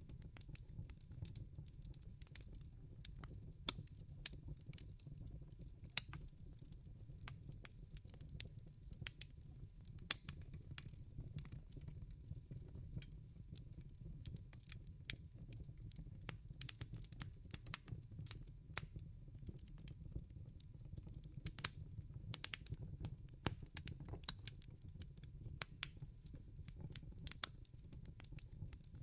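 Wood fire crackling in a fireplace: a steady low rumble of burning with irregular sharp pops and snaps scattered throughout.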